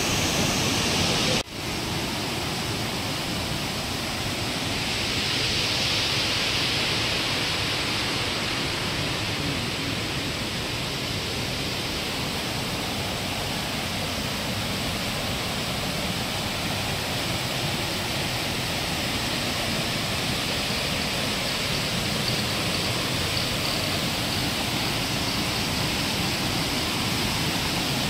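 Waterfall cascading over sloping rock: a steady rush of falling water, broken once by a short gap about a second and a half in.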